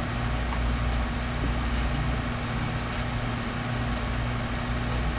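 Steady low hum with an even hiss: the background noise of a room recording, with no other event standing out.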